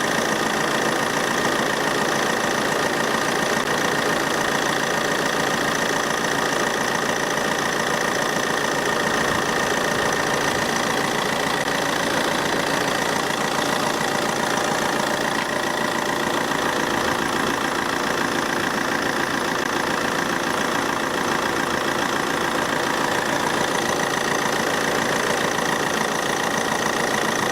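Car engine idling steadily with the air conditioning running while refrigerant is charged into the system, with a steady high whine over it.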